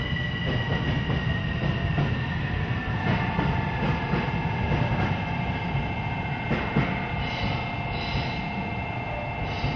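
JNR Class EF65 electric locomotive hauling blue sleeper coaches rolling slowly into the platform, a steady low rumble with thin high tones sliding slowly down in pitch. A steadier middle tone joins about three seconds in, and there are a couple of short knocks near seven seconds.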